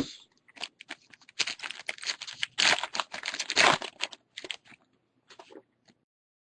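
Crinkling and tearing of a trading-card pack wrapper and the rustle and snap of cards being handled: a quick, irregular run of crackles that stops about six seconds in.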